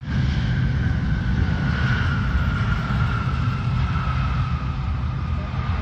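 Large jet airliner's engines running on the runway: a deep rumble under a whine that slowly falls in pitch.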